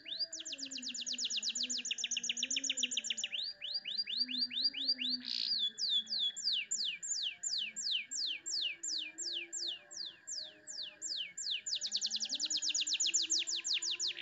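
Domestic canary singing long trilled rolls of rapid down-slurred whistled notes. The trill slows to separate sweeping notes in the middle and speeds up into a fast roll again near the end, over a faint steady high tone.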